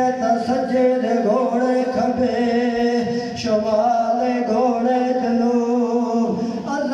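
A man chanting a religious recitation in a melodic, sung voice into a microphone, carried over loudspeakers, with a steady low tone held underneath.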